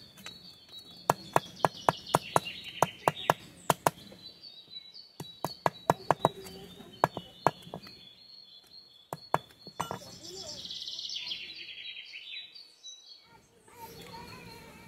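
Repeated sharp knocks of a tool striking wood, about three a second, thinning out after about four seconds and stopping near ten seconds in. Birds chirp in the background, most plainly in a burst about eleven seconds in.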